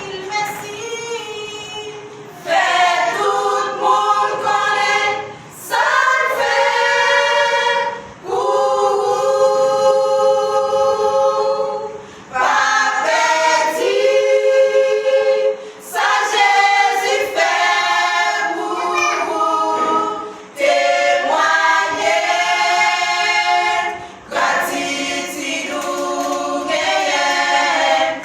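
A small vocal group singing a gospel song a cappella in harmony, in phrases of a few seconds with short breaks between them.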